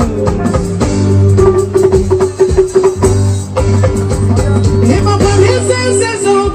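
Loud dance music with a steady deep bass and busy, fast percussion.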